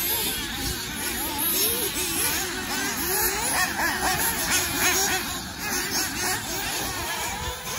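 Several nitro-powered radio-controlled off-road buggies racing, their small high-revving engines screaming and easing off in overlapping rises and falls of pitch as they throttle through the turns.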